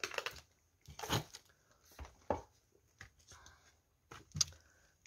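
Footsteps on loose rubble and debris: irregular crunches and scrapes, about one a second.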